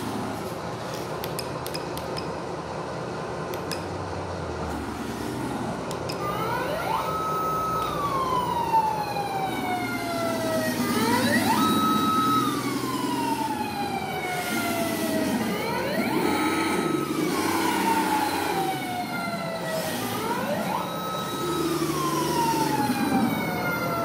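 Sound module of an MN D90 1/16 RC truck playing a simulated engine hum, then from about seven seconds in an electronic siren. The siren sounds four times, each cycle rising quickly, holding briefly and then falling slowly.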